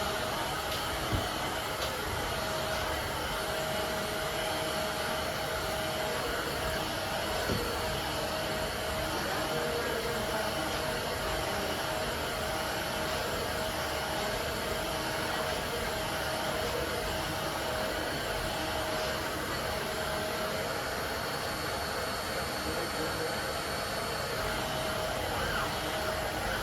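Vacuum cleaner running steadily: an even rushing noise with a constant whine.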